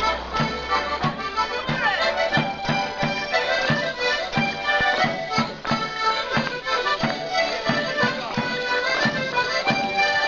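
Morris dance band playing a lively traditional folk tune on piano accordions, with a drum keeping a steady beat.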